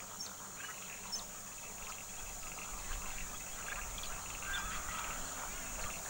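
Faint wetland ambience: a steady high insect drone with scattered faint bird chirps and calls.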